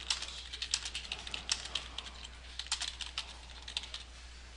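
Typing on a computer keyboard: an irregular run of quick key clicks as a short sentence is typed, stopping near the end.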